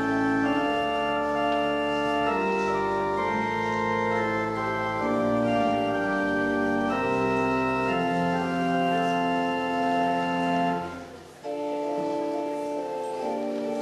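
Church organ played as a prelude: sustained chords changing every second or so over low pedal bass notes. About eleven seconds in the sound breaks off briefly and comes back without the deep bass notes.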